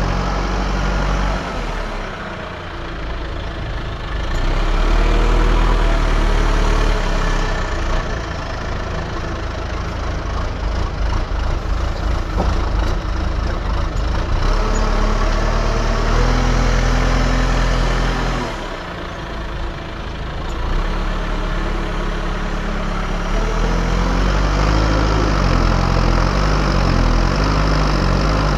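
Diesel engine of an earthmoving machine working, its note steady with load changes. The engine eases off twice, briefly, then picks up again.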